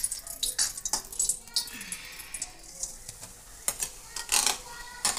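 Steel spoon clinking and scraping against a metal kadai in a few separate knocks, with grated coconut tipped in from a bowl near the end.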